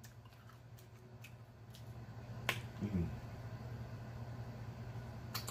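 Mouth sounds of sucking and licking wing sauce off fingers: a few sharp wet clicks and smacks, with a short 'mm' about three seconds in. A faint steady low hum sits underneath.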